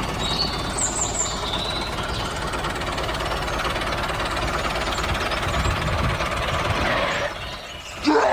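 A steady mechanical running sound like a small engine. It dips near the end and is followed by a sudden loud sound.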